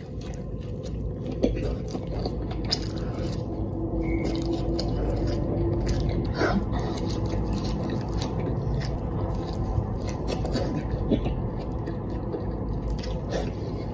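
A burger being chewed close to the microphone: many small wet clicks and crunches over a steady low background hum.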